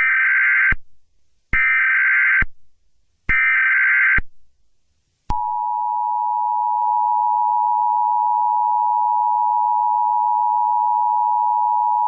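Emergency Alert System broadcast signal: three short, harsh digital data screeches of the SAME header, each under a second, then from about five seconds in the steady two-tone EAS attention signal sounding without a break.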